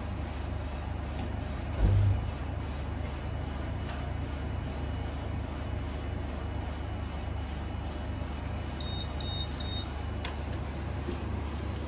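A machine's steady low hum, with a heavy thud about two seconds in. Three short high beeps follow a little before ten seconds, then a sharp click.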